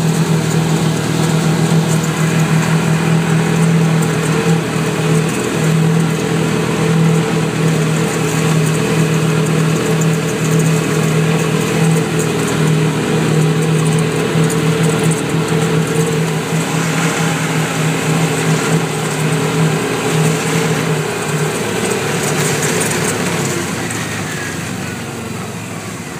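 Off-road vehicle engine running at a steady, high speed while driving, then easing off and fading over the last few seconds.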